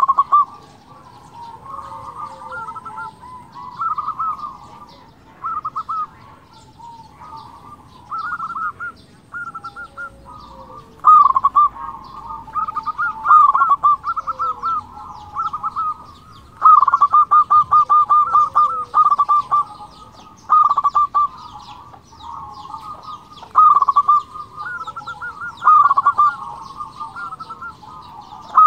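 Local Indonesian zebra dove (perkutut) in full song: phrase after phrase of fast, rolling coos, each made of quick pulsed notes, one phrase every second or two, some longer and louder than others.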